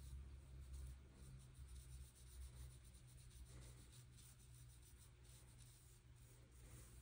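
Near silence: faint strokes of a fine watercolor brush on paper over a low, steady room hum.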